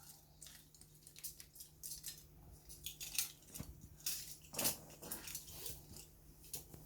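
Faint, irregular clicks and short scrapes of small hard objects knocking together, with a couple of louder knocks around the middle.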